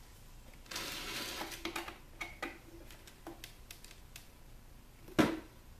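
A screwdriver working at a stubborn screw in a plastic cooler housing. There is a rough scrape about a second in, scattered small clicks, and a single sharp knock near the end.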